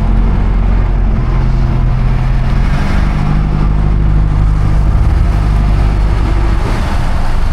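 Sportfishing boat's engines running steadily with a loud low hum, the engine note stepping up slightly about three seconds in, over a haze of wind and water noise.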